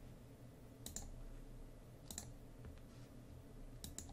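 Faint clicks of a computer mouse, three quick double clicks spread over the few seconds, over a low hum.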